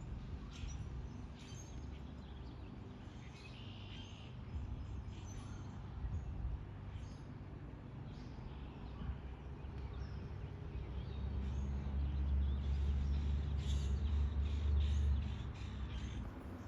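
Scattered short, high bird chirps over a steady low rumble, which swells louder from about two-thirds of the way in and drops back near the end.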